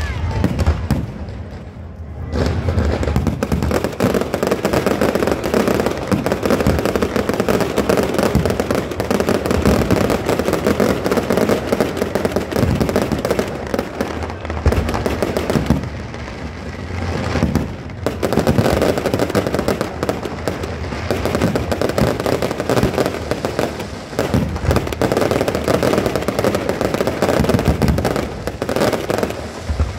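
Fireworks display: a dense, continuous barrage of bangs and crackles from aerial shells bursting overhead. It eases briefly near the start and again just past the halfway point.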